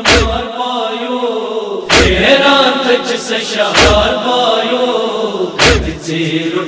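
A man chanting a Kashmiri noha (Shia mourning lament) into a microphone. Four heavy thumps about two seconds apart fall in time with the chant: chest-beating (matam).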